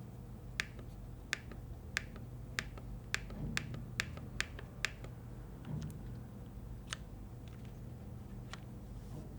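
Keys struck one at a time on a custom mechanical keyboard built on a Keychron Q3 metal case with hand-lubed switches. About a dozen sharp clacks come in an uneven run over the first five seconds, then two more at longer gaps.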